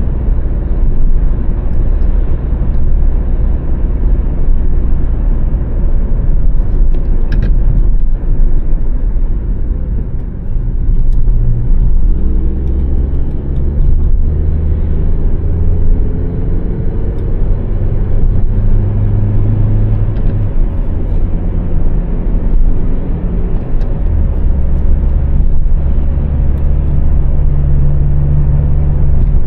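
2006 Honda Civic's 1.8-litre four-cylinder petrol engine running under way, over a steady low road rumble. The engine note climbs in pitch about halfway through as the car picks up speed.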